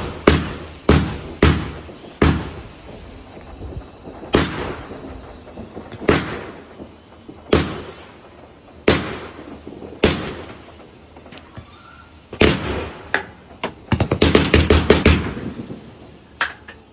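Fireworks going off, a string of single sharp bangs roughly every one to two seconds, then a quick run of rapid bangs about three-quarters of the way through.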